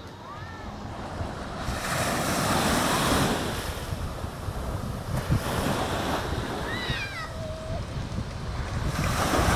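Caribbean Sea waves washing onto the beach, the surf swelling about two seconds in and again near the end, with light wind on the microphone. A few short, high sliding calls from an animal break through, once early and a couple of times about seven seconds in.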